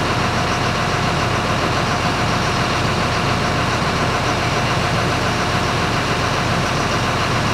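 An engine idling steadily, with one thin steady tone running through it.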